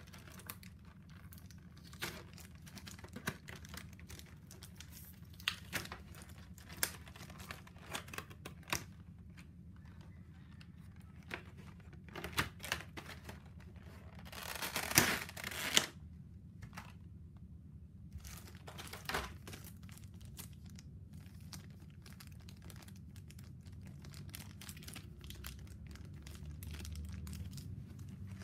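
Clear plastic blister trays and plastic bags being handled and opened, crinkling with scattered sharp clicks, and a louder stretch of tearing, crinkling plastic a little past halfway.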